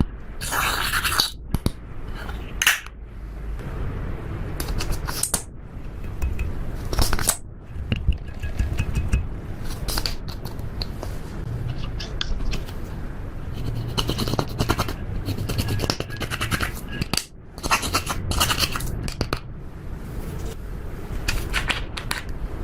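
Slime being mixed and squished by hand, giving irregular sticky clicks, crackles and pops.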